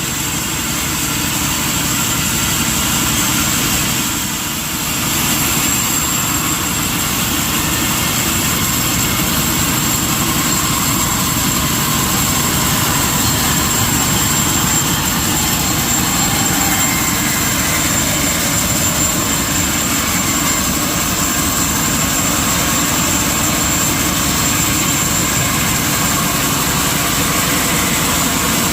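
Sawmill machinery running steadily: a constant loud mechanical noise with a thin high whine, easing off briefly about four seconds in.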